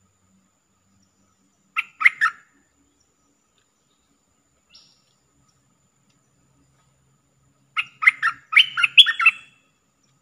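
Bulbul calling: a short burst of quick notes about two seconds in, then a longer run of several loud notes near the end.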